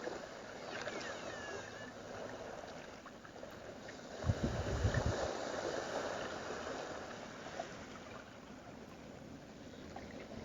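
Ocean waves washing in a steady hiss, with one fuller wave surging about four seconds in. Faint dolphin whistles glide about a second in.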